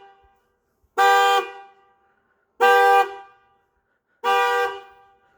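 Car alarm honking the car's horn in short blasts, three of them about a second and a half apart; the alarm is cycling on a loop and keeps going off.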